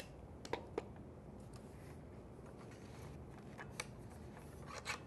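Faint handling sounds over quiet room tone: a few light clicks and taps as a tape measure is set down and a circular saw is picked up and placed on the lumber. Three come in the first second, one a little before the end and a small cluster at the very end.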